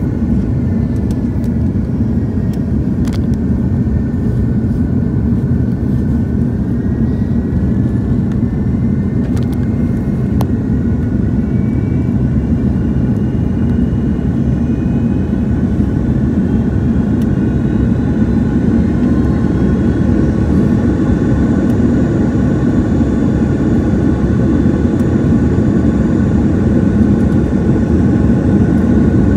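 Cabin noise of an Airbus A330-300 on final approach and landing: a steady rumble of its Rolls-Royce Trent 700 engines and airflow, with several whining engine tones. Fainter higher whines rise slowly in the second half, and the noise grows a little louder near the end as the aircraft reaches the runway.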